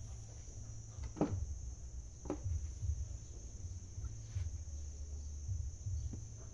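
Two short knocks about a second apart, with a fainter one near the end, as hydraulic pump parts are handled, over a steady high-pitched whine and a low rumble.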